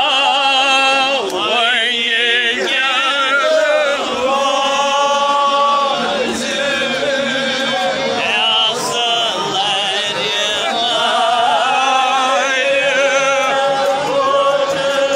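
Men singing a Kashmiri Shia mourning chant, a lament with long, wavering held notes, a lead voice carried over a megaphone and others joining in.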